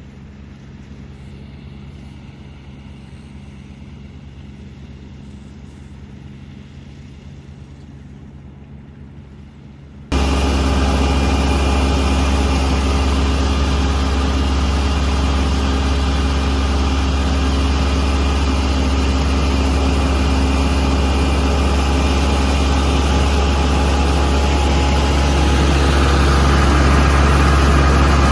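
Farm machinery running steadily. A quieter machine hum gives way abruptly, about a third of the way in, to a much louder steady machine with a deep drone.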